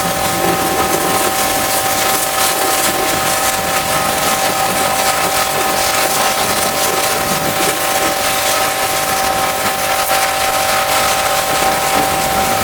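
Pressure washer spraying a high-pressure water jet: a loud, even hiss with a steady whine from the machine underneath.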